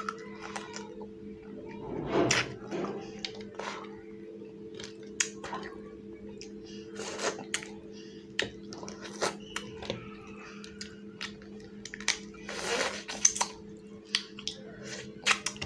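Close-up eating sounds: wet chewing and lip smacks, with sticky clicks from fingers working fish curry and rice. There are two louder wet mouth noises, about two seconds in and again near the end. A steady low hum runs underneath.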